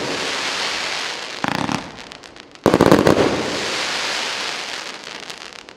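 A 200-shot, 1.2-inch-calibre firework cake firing: loud bursts about a second and a half in and again near three seconds, each followed by dense crackling that dies away toward the end.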